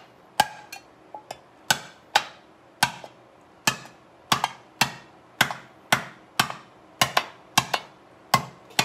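An empty tuna can being struck again and again as holes are punched through its bottom: sharp, ringing knocks about two a second, sixteen or so in all.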